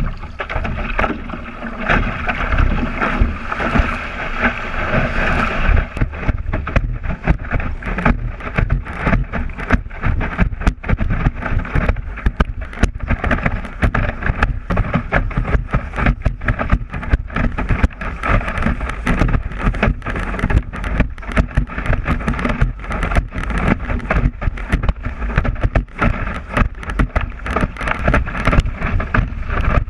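Windsurf board planing fast over chop: a constant rush of wind on the board-mounted microphone, broken by rapid slaps and knocks of the board hitting the waves. A brighter hiss sits on top for the first six seconds or so.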